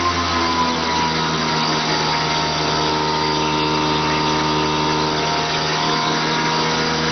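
A 50cc two-stroke scooter engine fitted with a racing kit running under load on a dynamometer, at a steady speed. Its pitch dips a little in the first second and then holds steady.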